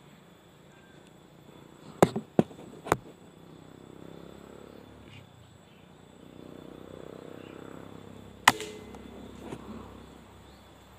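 Sharp cracks of a Canon 737 'uklik' air rifle firing: three close together about two seconds in, and a single louder crack with a short ring near the end.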